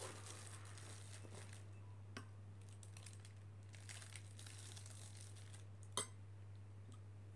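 Faint crinkling of a plastic piping bag being handled and filled with whipped cream, over a steady low hum. About six seconds in, a single sharp clink as a metal spoon hits the china saucer.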